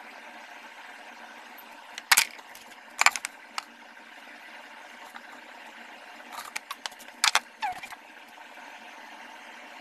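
Sharp clicks and short light rattles from close handling, over a steady hiss: one about two seconds in, a double about a second later, and a busier cluster later on that ends with a short falling squeak.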